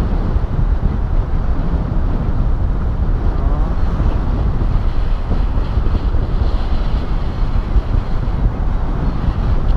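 Airflow buffeting an action camera's microphone during a paraglider flight: a loud, steady low rumble of wind noise.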